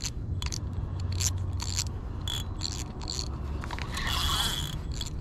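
Spinning reel being cranked to wind in line, a rhythmic clicking of about two or three ticks a second over a low steady hum, with a brief hiss and short high tone about four seconds in.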